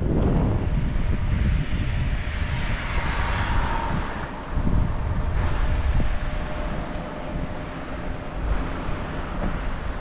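Harley-Davidson Panhead V-twin motorcycle running through its replacement muffler, with wind buffeting the microphone; the level dips briefly about halfway through.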